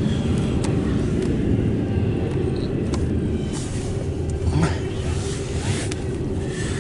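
CSX intermodal freight train passing: a steady low rumble of wheels on the rails, heard from inside a car, with a few sharp clicks.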